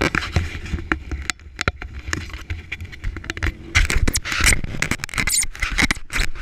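Close handling noise on the camera: fabric and a hand rubbing, scraping and knocking against the housing in irregular taps and scuffs.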